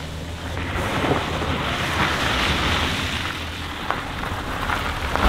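Renault Clio hatchback driven hard on loose dirt: its engine running under load while the tyres scrabble over gravel, with wind rushing on the microphone.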